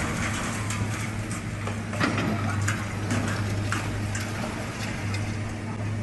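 Concrete breaking and falling as a high-reach demolition excavator's crusher tears down a high-rise: irregular sharp cracks and clatters of debris, over a steady low machine hum.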